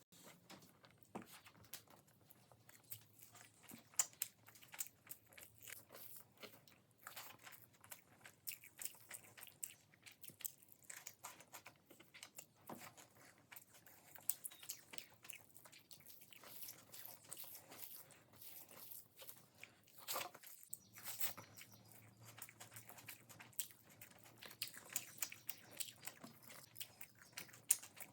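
A person biting and chewing crunchy food: irregular crisp crunches, a few of them sharper and louder, about 4 s in and near the end.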